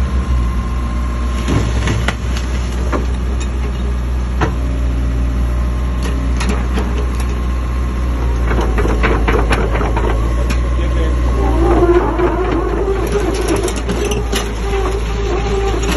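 Caterpillar 305 mini excavator's diesel engine running steadily while the boom is worked hydraulically, with scattered knocks and clanks. About three-quarters of the way through a wavering higher tone joins the engine.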